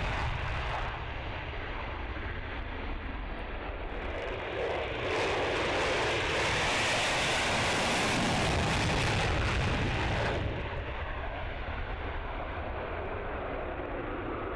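Twin afterburning turbofan engines of an F-22 Raptor at takeoff power: a steady rushing jet noise that grows louder about five seconds in and drops back about ten seconds in.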